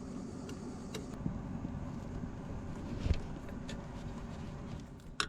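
Light clicks and a knock, about three seconds in, of engine parts being worked loose by hand, over a steady low rumble.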